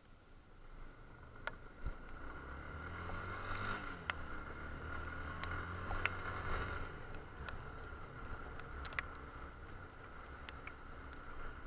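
Motorcycle engine picking up speed and then easing off, under a steady rush of wind past the helmet, with scattered sharp ticks of raindrops hitting it.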